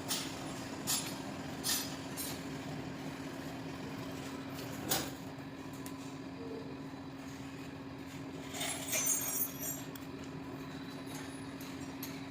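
Steady one-pitched hum of a running workshop machine, with a few sharp metal knocks in the first five seconds and a short run of metallic clinks near the end.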